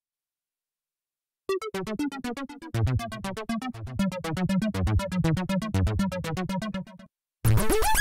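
Korg Mono/Poly V2 software synthesizer playing its '8 Step Sequence' preset: a fast, repeating step-sequenced pattern of short bass notes. It starts about a second and a half in and stops about seven seconds in. Near the end a louder, brighter synth patch with rising pitch sweeps begins.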